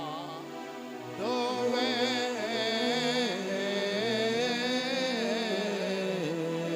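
A solo voice singing a slow devotional hymn with vibrato and long held notes over a steady instrumental accompaniment. A new phrase begins about a second in, after a short dip.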